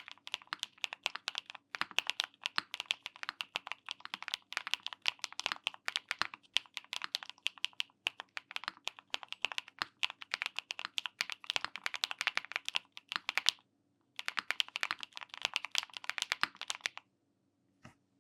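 Fast typing on an Agar mechanical keyboard fitted with BSUN Her Heart linear switches, keys bottoming out in a rapid stream of poppy, deep clacks. There is a short break about fourteen seconds in, the typing stops at about seventeen seconds, and one lone keystroke follows near the end.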